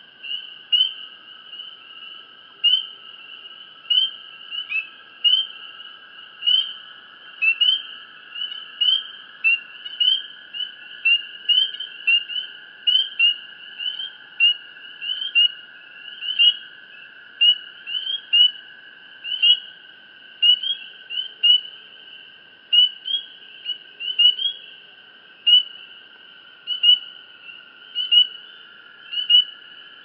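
Night chorus of calling animals: a sharp chirp repeats about twice a second over a steady, unbroken higher trill.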